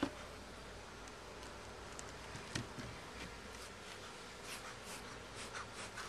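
Honey bees buzzing around a wooden beehive: a faint, steady hum. A sharp knock comes right at the start and a softer thump about two and a half seconds in.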